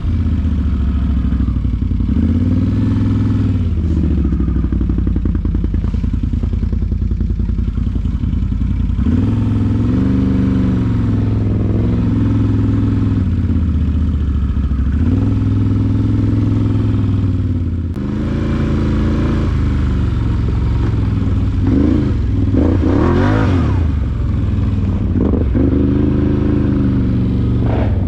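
ATV engine running at varying throttle, its pitch rising and falling every few seconds as the rider eases on and off along the trail. The revs climb sharply about 22 seconds in.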